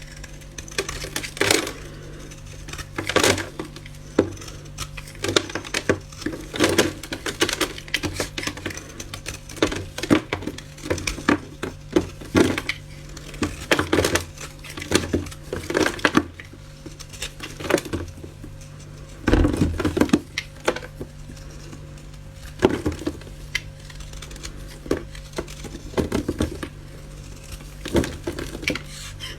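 Brittle material being cut and crushed: a string of irregular crisp crunches and cracks, one of the loudest about two-thirds of the way through, over a steady low hum.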